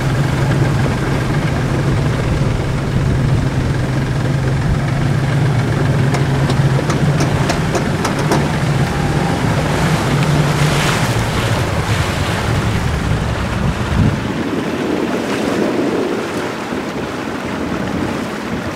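Speedboat engine running with a steady low hum under wind and water rushing past. About fourteen seconds in the engine hum drops away as the boat slows, leaving softer wind and water noise.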